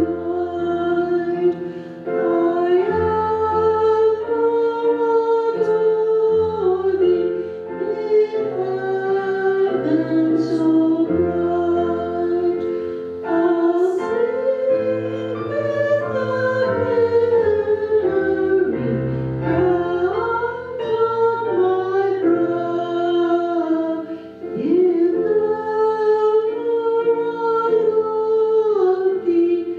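A woman singing a hymn in long, sustained phrases with piano accompaniment.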